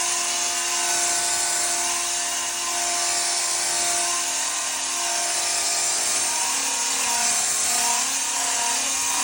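Concrete circular saw running steadily: a high, even hiss over a motor whine with several steady tones.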